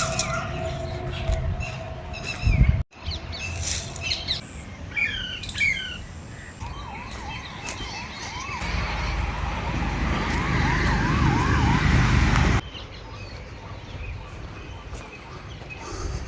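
Birds chirping and calling, with short chirps early on and then a run of quick up-and-down call notes in the middle, over a low rumble of outdoor noise that swells and then stops abruptly at a cut.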